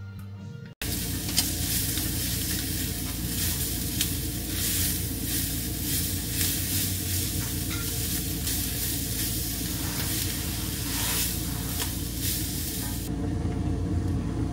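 Chopped food and onion frying in a white enamelled pan, sizzling steadily while stirred with a silicone spatula, with small scrapes and ticks. The sizzling starts suddenly about a second in and softens near the end.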